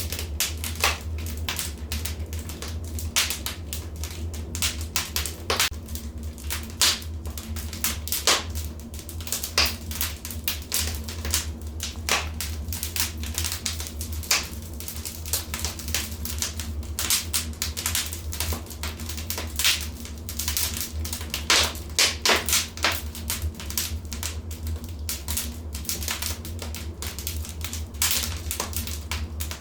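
Wood fire crackling in a fireplace: irregular sharp pops and snaps, several a second, with a few louder pops, over a steady low rumble.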